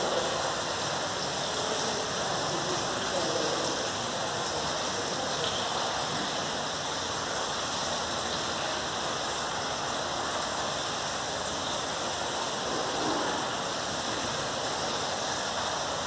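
Steady hiss-like rushing noise, like running water or moving air, with faint voices murmuring now and then.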